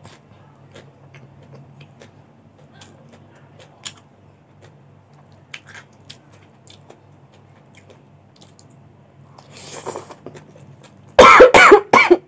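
Close-up eating: quiet chewing with small crunches and light clicks of a plastic fork and spoon, then a sharp breathy intake of breath about ten seconds in. Just after, a person coughs hard several times in quick succession, much louder than anything before.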